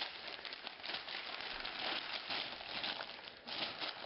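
Sheets of paper rustling and crumpling as they are gathered up by hand from a carpet, an irregular crackle without a break.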